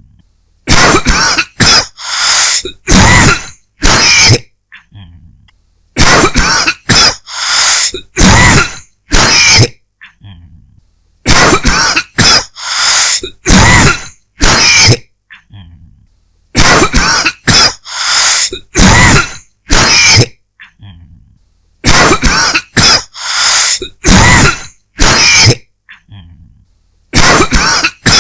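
A person's dry cough in repeated fits: six bouts of several quick coughs each, about five seconds apart, separated by short quieter gaps.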